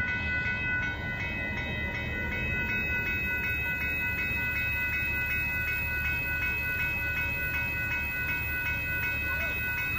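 Amtrak Texas Eagle passenger train passing through a level crossing, a steady low rumble of the train going by. Over it the crossing's warning bell rings rapidly and evenly.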